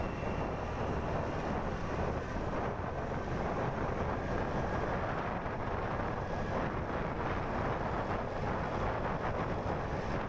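Steady wind noise on the microphone of a moving motorbike, mixed with its engine and tyre noise while riding at a constant speed.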